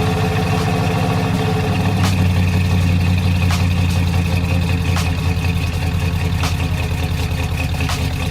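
The 1986 Jeep Grand Wagoneer's AMC 360 V8 idling steadily, with a faint sharp tick about every second and a half.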